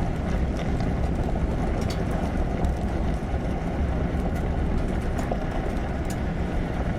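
A vehicle driving along a road: a steady low rumble of road and engine noise with a few faint ticks, unchanging throughout.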